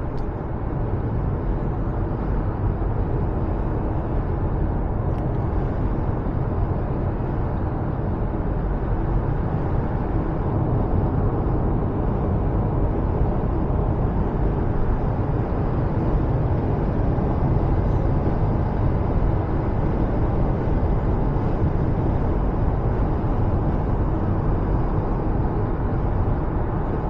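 Steady road and tyre noise heard inside the cabin of a moving 2024 Subaru Forester Touring.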